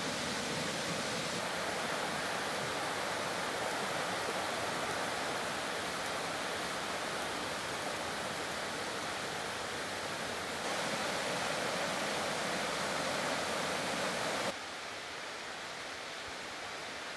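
Steady rush of a mountain creek flowing over rocks, its level jumping abruptly up and down a few times.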